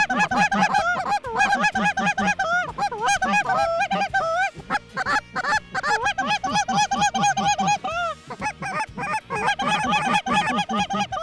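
A flock of snow geese calling overhead: a dense, continuous chorus of short, high-pitched overlapping calls, several to the second, thinning briefly twice.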